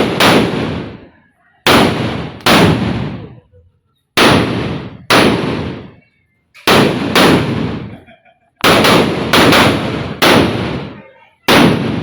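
Firecrackers (petasan) going off: about a dozen very loud bangs, mostly in quick pairs, each with a sudden crack that dies away in an echo over about a second.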